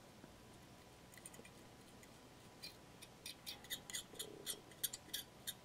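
Small metal spatula ticking and scraping faintly against a ceramic pitcher's broken spout as epoxy putty is pressed into a crack. A few light ticks at first, then a quick run of sharp ticks from about halfway in.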